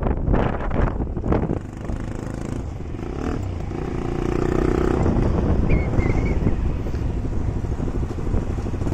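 Motorcycle engine running under way, getting louder from about four seconds in. Wind buffets the microphone in the first second or so.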